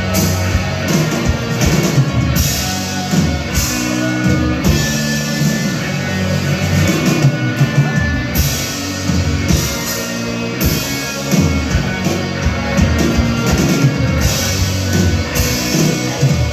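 Live rock band playing loud, with drum kit, guitar and bass over a steady driving beat and no vocals.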